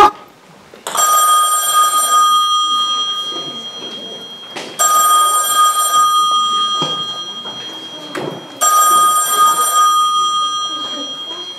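A bell-like ringing sound effect, three rings about four seconds apart, each starting sharply and fading slowly.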